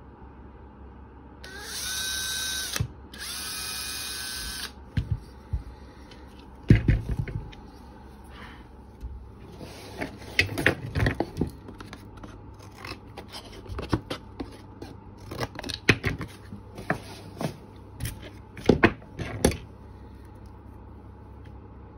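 Cordless drill with a small bit running in two short bursts of about a second and a half each, a couple of seconds in, its whine rising as it spins up while boring a hole into a wooden lure body. Then a long run of scattered knocks and clicks from tools and parts being handled and set down on the workbench, the loudest a few seconds after the drilling stops.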